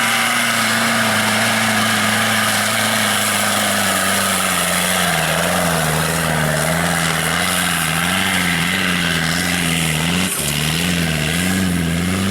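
Off-road 4x4 engine working hard under load. Its note holds steady at first, dips a little, then wavers up and down about once or twice a second as the revs rise and fall on rough ground. There is a brief sharp knock about ten seconds in.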